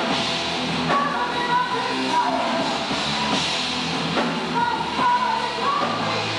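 Live rock band playing: drum kit, distorted electric guitar and bass at full volume, with a singer's lead line weaving over the top.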